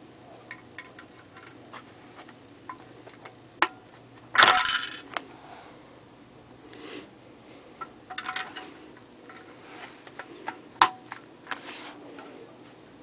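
Antique cast iron J&E Stevens Mule Entering Barn mechanical bank being worked by hand. Small clicks and taps as it is set, then about four and a half seconds in a loud metallic clatter as the spring-driven mule swings into the barn and a coin drops inside. Later come more clicks and a sharp snap near eleven seconds as the mule is pushed back out and latched.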